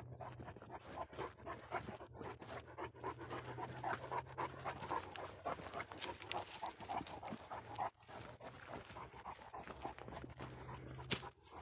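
A dog panting rapidly and rhythmically, with a steady low hum underneath. There is one sharp click near the end.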